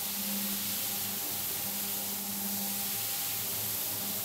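Single-disc rotary scrubbing machine running on a wet, shampoo-foamed rug: a steady motor hum under an even hiss from the rotating brush churning the foam into the pile.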